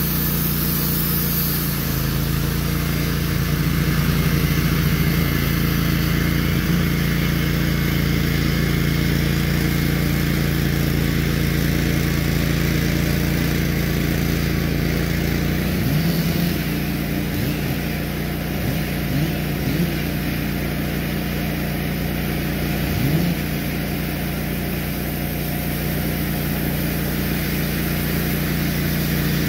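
Wood-Mizer LT15 GO portable band sawmill running steadily, its gas engine driving the band blade through a log as the sawhead is pushed along. A little past halfway the engine note shifts, with a few short rising sweeps in pitch.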